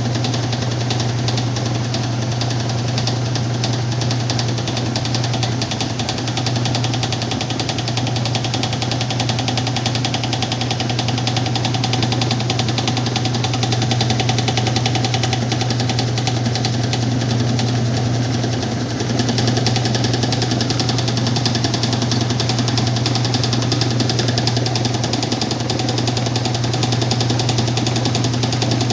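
Whirlpool washing machine running with a steady low motor hum and a fast, even buzzing rattle. About two-thirds through, the sound dips briefly and comes back a little louder and brighter.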